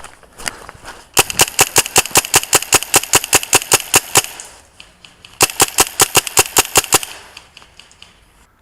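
Airsoft rifle firing on full auto, about eight shots a second: a long burst of roughly three seconds, then a second burst of about a second and a half.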